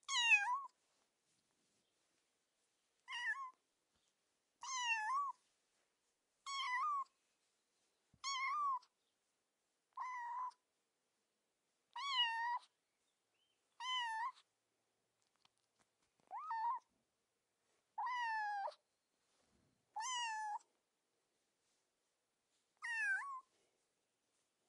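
Kitten meowing: about twelve short, high-pitched meows, one every second and a half to two seconds, with quiet gaps between them.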